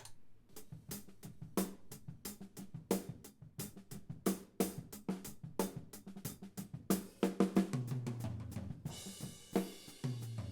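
A drum kit heard through a soloed close hi-hat microphone: crisp, steady hi-hat strokes, with the snare and kick drum bleeding in more faintly underneath. About nine seconds in the hi-hat opens into a longer sizzling wash.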